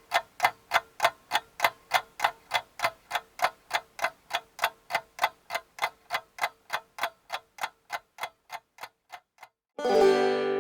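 Steady clock-like ticking, about four ticks a second, growing fainter until it stops near the end. A loud music chord then comes in just before the end.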